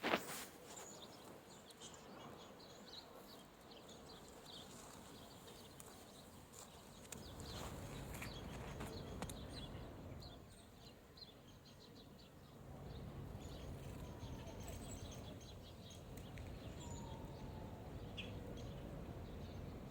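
Footsteps crunching in fresh snow, with a few short bird calls later on and a low rumble that swells and fades in the second half.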